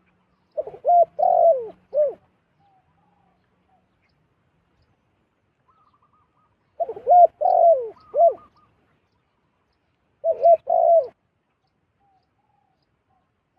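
Zebra dove calling: three bursts of quick, staccato coos, one near the start, one about halfway and one about two-thirds through, with a few fainter notes between them.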